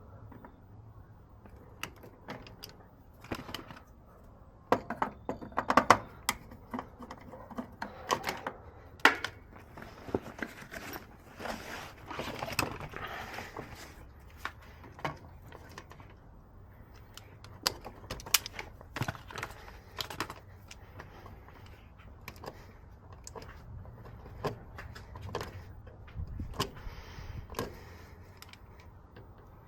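Irregular clicks, taps and light rattles of hand tools and small metal parts being handled during electrical repair work on an air conditioner, busiest from about five to thirteen seconds in.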